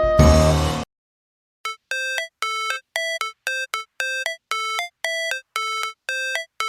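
Background music: a full band passage ends on a final hit just under a second in, then after a short gap a synth plays a repeating pattern of short bell-like electronic beeps, about two a second, each stepping up in pitch like a ringtone.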